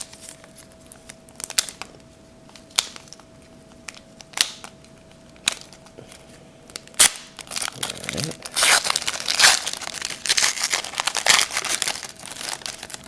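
Trading card pack wrapper being handled and torn open: a few sharp crackles at first, then a dense stretch of crinkling a little past halfway through.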